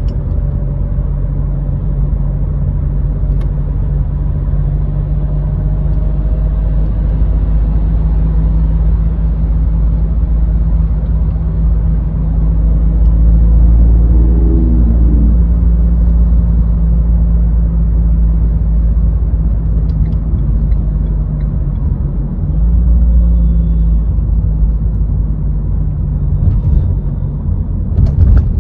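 Car being driven in city traffic: a steady low engine hum and road rumble, growing louder about halfway through as the car speeds up, with a second brief swell later.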